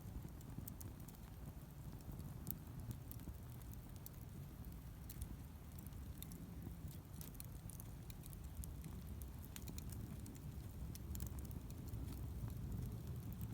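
Wood campfire burning: irregular sharp crackles and small pops over a low steady rumble.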